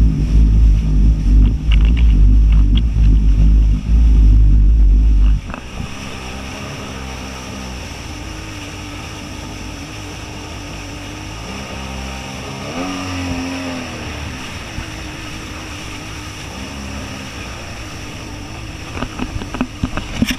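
Heavy wind buffeting on a GoPro microphone aboard a speeding watercraft, a loud low rumble that cuts off suddenly about five seconds in. After that a watercraft engine runs over the hiss of churning wake water, its pitch rising and falling briefly past the middle.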